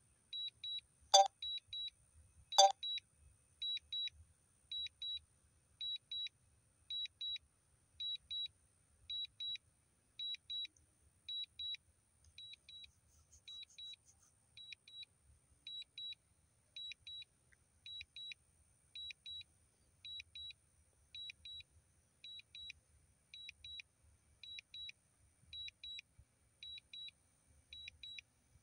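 A DJI drone remote controller gives its return-to-home warning, a pair of short high beeps about once a second, which signals that the Mavic 3 is returning home automatically. Two sharp clicks, louder than the beeps, sound about one and two and a half seconds in.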